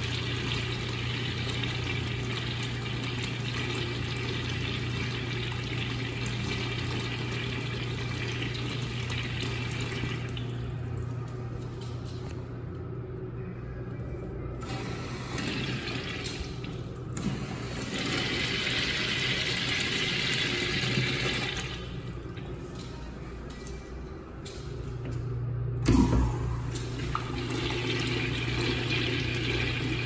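Urinal flushed by a manual chrome flushometer: water rushes into the ceramic bowl with a low hum and tails off about a third of the way through. Another gush follows in the middle, and near the end a sharp click is followed by a fresh flush.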